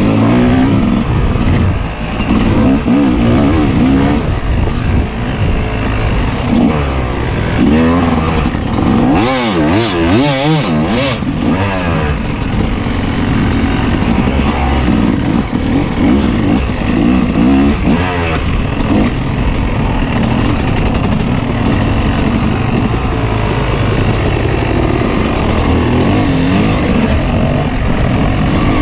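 Dirt bike engine running while the bike is ridden along a dirt trail, its revs rising and falling with the throttle. The quickest swings come from about eight to twelve seconds in.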